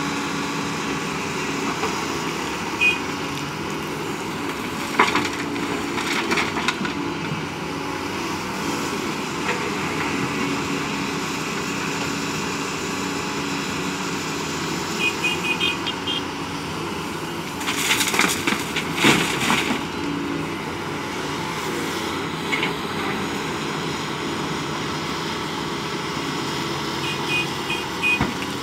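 Doosan crawler excavator's diesel engine running steadily under load while it loads sand and gravel into a tipper truck, with loud clattering impacts of material around 5 s, 6 s and 18–20 s.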